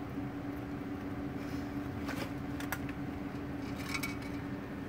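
A steady mechanical hum from a room appliance, with a few faint scattered rustles and clicks as degus move about among paper towels and toys.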